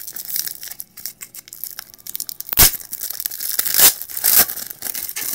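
A trading card pack wrapper being torn open and crinkled, with several sharp rips, the loudest about two and a half and four seconds in.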